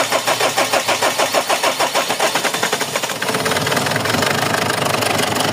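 Mazda BT-50's 3.0 L WE turbo-diesel being cranked by the starter in rapid, even pulses, catching about three seconds in and settling into a steady run. The engine is one with a hard-starting problem.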